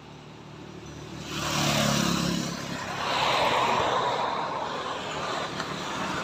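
Road traffic noise: about a second in a vehicle passes close by, with engine hum and tyre rush swelling up. A second swell follows a couple of seconds later, and the road noise then carries on steadily.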